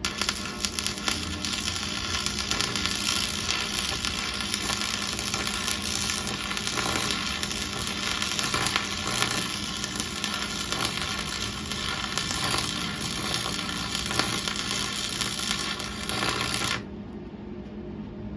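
Electric arc welding on steel: the arc's steady crackling sizzle runs for about seventeen seconds and cuts off suddenly near the end, with a low steady hum underneath.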